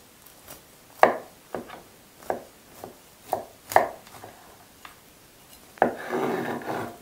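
Chef's knife cutting down through a brownie with a crunchy walnut topping and knocking onto a wooden cutting board: five sharp knocks over the first four seconds. Near the end comes another knock, then about a second of rough scraping crunch as the blade works through the crust.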